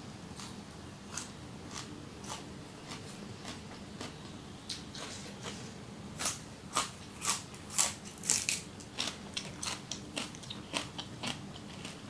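Close-up chewing of raw fresh greens: soft scattered mouth clicks at first. About six seconds in, a raw green onion stalk is bitten, giving loud crisp crunching that thins to lighter chewing crunches near the end.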